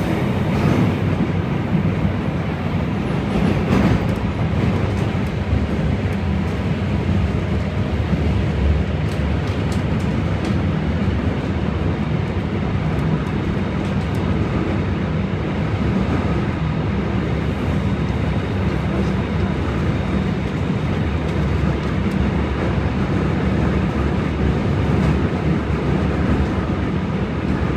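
Seoul Metro Line 4 subway train running at speed, heard from inside the car: a steady rumble of wheels on rail that does not change.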